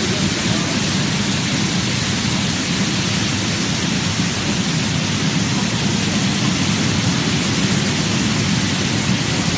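Steady rush of water in a stainless-steel ozone vegetable washing machine: the tank water churns and bubbles while rows of nozzles spray down onto the produce.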